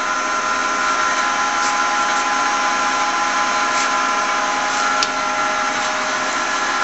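LeBlond 16-inch toolmakers lathe running, its geared drive giving a steady whine of several tones over a mechanical hum. A single click about five seconds in.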